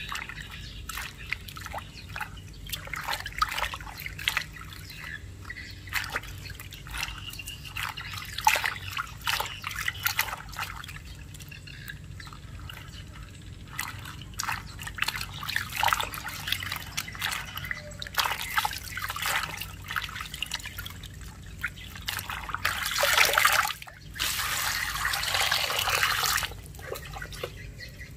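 Water splashing and sloshing in a metal basin as hands rub and rinse bok choy, with many small irregular splashes and drips. Near the end comes a louder, steadier rush of water.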